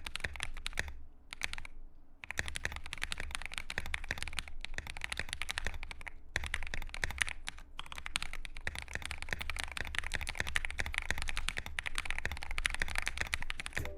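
Rapid, continuous typing on a CIY GAS67 custom mechanical keyboard with pre-lubed Akko Wine Red switches, an acrylic plate, and foam and painter's-tape mods, giving a muted keystroke sound. There are brief pauses about a second and two seconds in.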